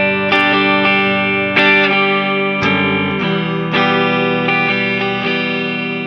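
Gibson ES-335 semi-hollow electric guitar strumming chords, a fresh strum every half second to a second, each chord ringing on between strikes.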